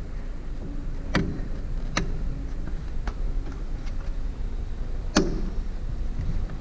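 Plastic and metal clicks and knocks of a pickup tail light and its clips being pushed into place: three sharp clicks, the loudest about five seconds in, and a few lighter taps, over a steady low rumble.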